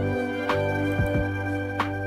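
Soft instrumental background music: sustained chords with sharp struck notes every half second to second.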